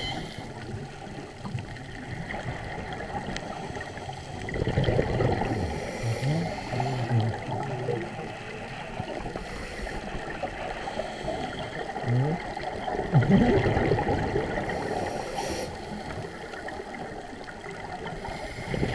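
Underwater sound of a scuba diver's exhaled bubbles gurgling from the regulator in several bursts, the loudest about 13 seconds in, over a steady wash of water noise.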